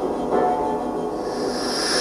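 Large gongs ringing in a sustained wash of many overlapping tones, with a hissing shimmer in the upper range swelling toward the end.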